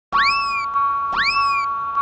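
Cartoon sound effect: a springy boing-like glide that shoots up in pitch and slowly falls back, repeating twice about a second apart over a steady high ringing tone, starting suddenly after a moment of silence.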